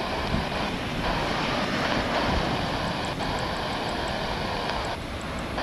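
Airbus A350's Rolls-Royce Trent XWB jet engines on landing approach and touchdown, heard as a steady rush mixed with wind buffeting the microphone, dipping briefly near the end.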